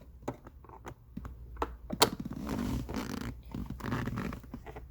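Phillips screwdriver turning a trim screw loose in a car's shift console: irregular small clicks and scrapes, with one sharper click about two seconds in.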